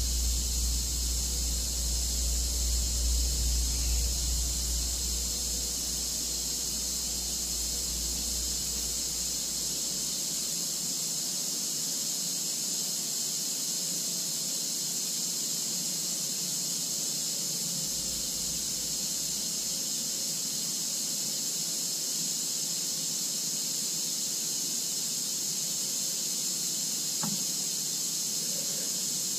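A steady high-pitched hiss, with a low rumble that fades away over the first several seconds and a single faint tap near the end.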